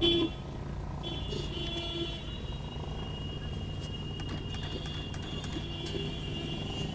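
Steady low background rumble with a faint high steady tone, and faint voices in the distance.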